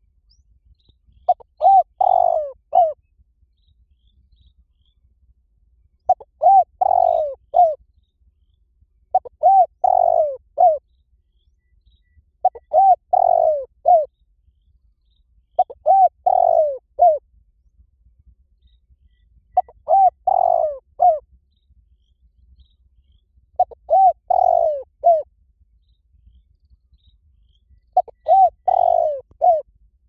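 Spotted dove cooing. It gives a phrase of several short coos about every three and a half to four seconds, eight phrases in all.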